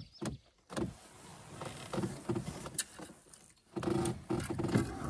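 Handling noise: clothing and gear rustling and rubbing, with scattered light clicks and knocks, louder about four seconds in.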